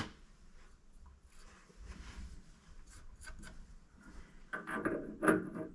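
Steel test piece being screwed by hand into freshly cut internal threads in a steel nut: faint metal-on-metal rubbing and scraping with a few small clicks, louder about four and a half seconds in.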